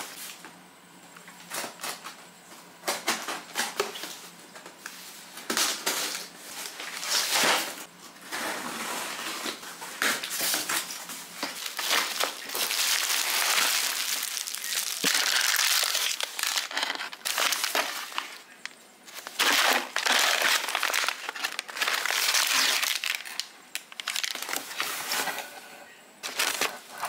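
Foil insulation liner and cardboard packaging crinkling and rustling as a delivery box is unpacked by hand, in repeated bursts with short pauses.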